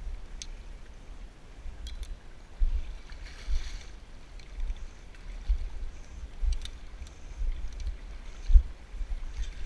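Irregular low rumbling thumps of wind and handling on an action camera's microphone, over the rush of a shallow river, with a few faint clicks. The strongest thump comes near the end.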